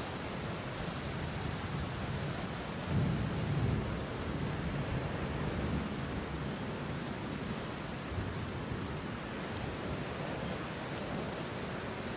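A steady hiss like rain, with a low rumble that swells about three seconds in and again more weakly near six seconds.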